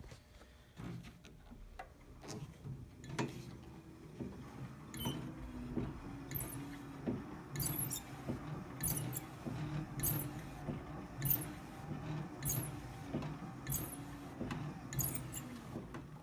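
Star Trac 9-4060 elliptical trainer in motion, a low hum rising and falling with each stride, with a sharp click repeating about every 1.2 seconds from about five seconds in. It is the noise that has been present since the machine's left arm was replaced.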